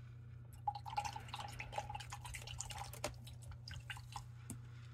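Paintbrush rinsed in a jar of water: small splashes, drips and clicks of the brush against the jar, starting about a second in and stopping near the end.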